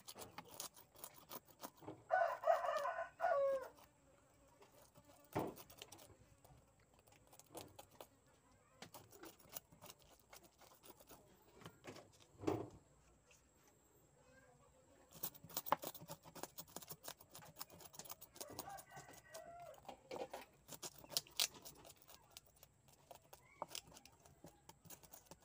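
A rooster crows about two seconds in, the loudest sound, and again more faintly around nineteen seconds. Throughout, a knife scrapes scales off a tilapia on a wooden chopping board in quick, uneven clicks.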